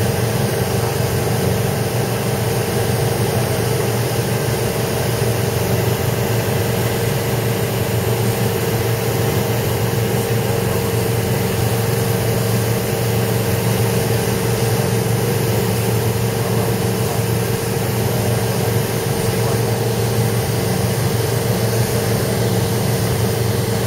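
Light airplane's engine and propeller heard from inside the cabin in cruise: a steady, even drone that does not change.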